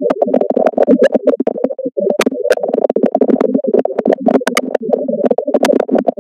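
Muffled electronic music with many sharp clicks running through it, and a brief dip about two seconds in.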